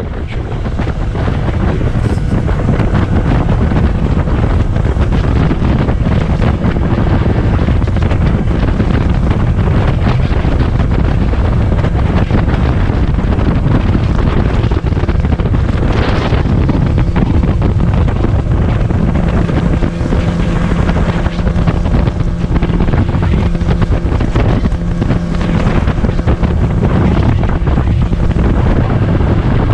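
Outboard motor of a tiller-steered Bester 450 boat running under way, with heavy wind buffeting the microphone. A steady low engine note comes through more clearly in the second half.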